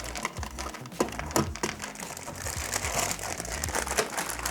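Plastic wrapping crinkling and a few light knocks as small car-alarm parts are handled and set down.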